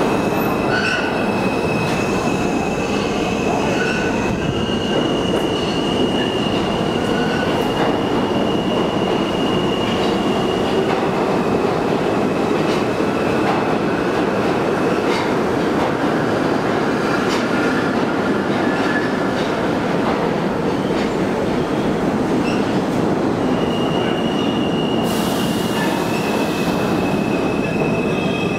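R160A subway train running through the tunnel: a steady rumble of wheels on rail with a high, thin squeal held throughout, which steps slightly in pitch a few times.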